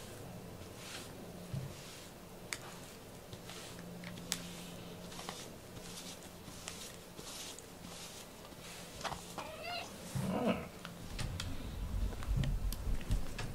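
Black cat purring steadily close to the microphone, a low rhythmic rumble. About ten seconds in comes a brief higher sound, then low rumbling handling noise as the camera moves.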